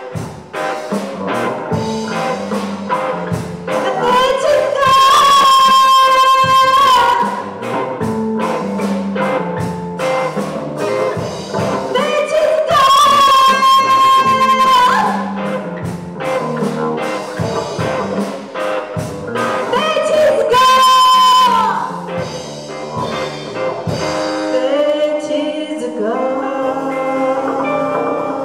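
Live band performing a Burmese ballad: a woman sings over drums, electric guitar, bass and keyboards, holding three long high notes. Near the end the drum hits thin out and the instruments hold sustained chords.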